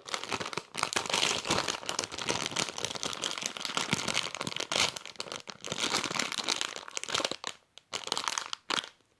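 Crinkling, crackling handling noise, made up of dense, irregular rustles, as a homemade squishy is squeezed and turned over in the hands. There are short breaks near the end.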